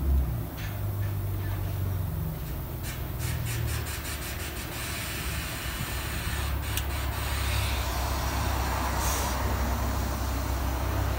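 A steady low mechanical drone with hiss runs throughout. Light metallic clicks come about three seconds in and again near the middle, as pliers work the spring hardware of a rear drum brake's shoes.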